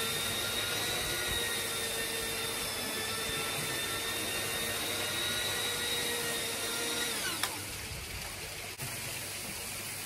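1960s Hoover 5464 twin-brush rug shampooer running, its motor whining steadily as the brushes scrub the wet, foamy rug. About seven seconds in the whine drops in pitch and dies away as the machine is switched off.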